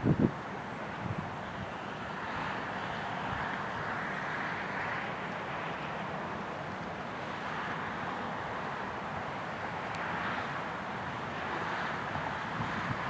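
Steady outdoor rushing noise with no siren tone in it, swelling and fading slowly, with a brief low thump right at the start.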